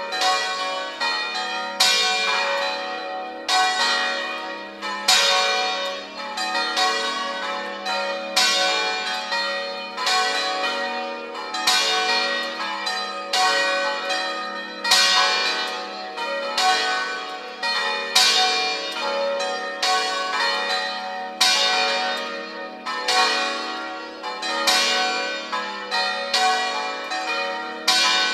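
Five church bells ringing together in a swinging peal (distesa), their strikes overlapping in a steady cycle that comes round about every second and a half, each stroke ringing on into the next.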